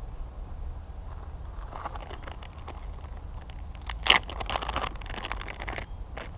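Plastic soft-bait package crinkling and rustling as hands handle it while rigging a fishing lure, with scattered crackles and one sharp, louder crackle about four seconds in, over a steady low rumble.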